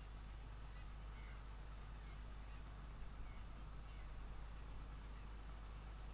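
GE 45-ton diesel switcher locomotive moving slowly along the track, its engines giving a steady low rumble.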